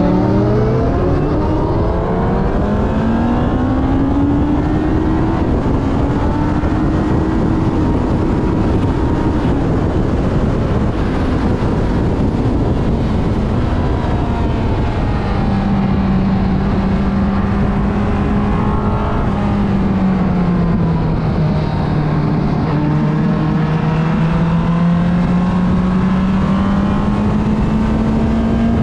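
Motorcycle engine ridden hard, its note climbing through the revs in the first few seconds, holding high, then dropping and slowly rising again about two-thirds of the way through. A constant rush of wind and road noise runs under it.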